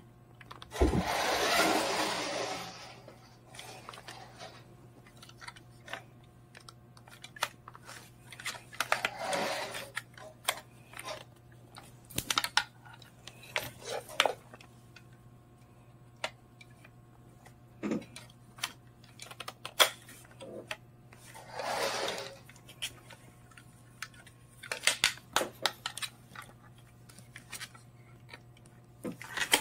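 Remote-control buggy's small electric motor whirring in short bursts of a second or two as it is driven, with scattered clicks and knocks in between and a low steady hum underneath.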